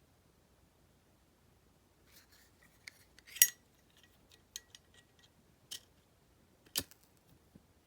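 WWII-era black crackle Zippo lighter with a 4-barrel hinge being worked by hand: a loud metallic clack of the hinged lid, a few small clicks and scrapes with a faint metallic ring, and another sharp clack near the end.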